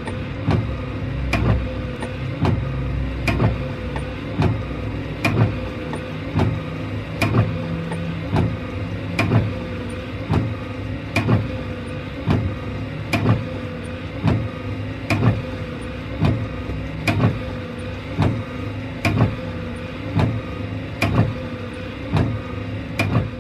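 Car windshield wipers running continuously, the wiper motor giving a steady hum while a knock sounds at each end of the sweep, about once a second.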